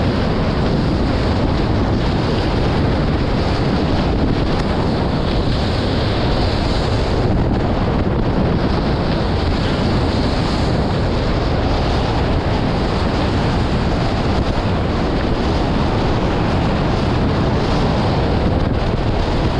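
Steady loud wind buffeting the microphone over the rush of water and spray from a Nacra 20 beach catamaran's hulls driving through the sea at speed in strong breeze.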